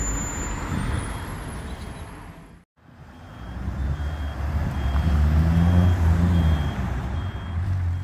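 Street traffic with a heavy vehicle's engine rumbling. The sound cuts out briefly just under three seconds in, then the engine rumble swells and a short high electronic beep repeats about every three-quarters of a second over it.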